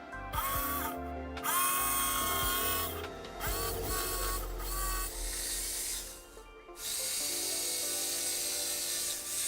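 Electric jigsaw cutting wood in short runs, its motor stopping and starting again several times, each restart a short rising whine.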